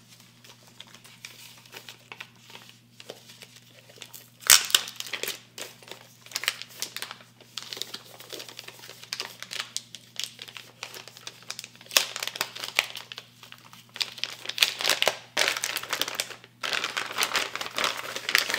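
Clear plastic bag crinkling and rustling in irregular handfuls as an audio interface is unwrapped from it, busiest and loudest in the last few seconds.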